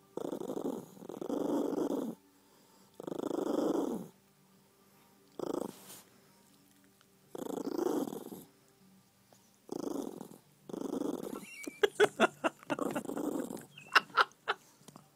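A cat purring close to the microphone, in bursts about a second long with short pauses between. Near the end comes a quick run of sharp clicks.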